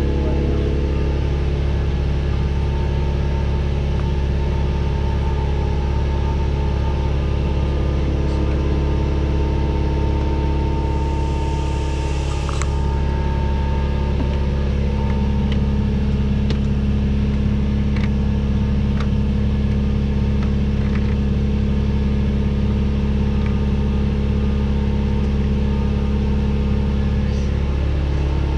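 A steady, unbroken low mechanical hum, like an engine or motor running, with a few light metallic clicks and taps about halfway through.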